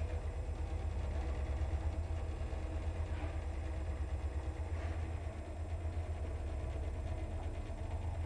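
Electric lift rated 1 m/s and 320 kg running in its shaft: a steady low hum from the drive and the moving car, with no pauses.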